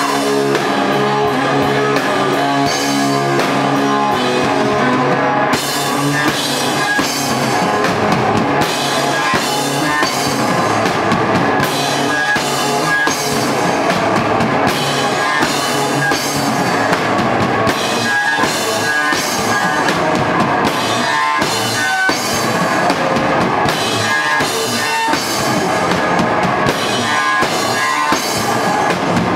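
A rock band playing live, with drum kit, electric guitar and bass; the drums and cymbals come in hard about five seconds in and keep a steady beat.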